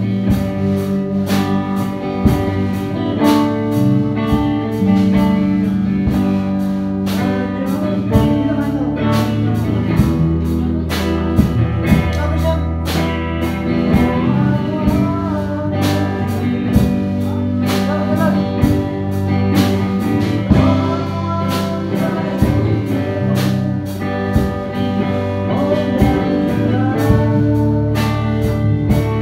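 A live worship band playing a slow song on electric guitar and drum kit, with a man singing into a microphone over a steady beat.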